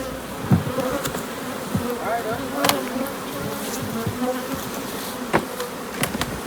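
Honeybees buzzing in the air, with single bees passing close and their buzz rising and falling in pitch. A few sharp clicks are heard among the buzzing.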